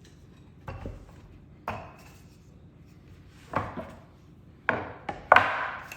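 Rolling pin working pie dough on a board: about six short knocks with brief rubbing strokes, irregularly spaced, the loudest one about five seconds in.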